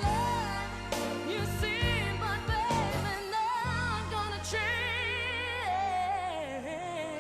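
Pop band music: a wavering lead melody with vibrato over bass and drum hits. The drums drop out about halfway, and the melody descends as the song winds down.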